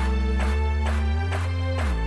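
Background music with a steady beat, about two beats a second, over held bass notes that change pitch, sliding down near the end.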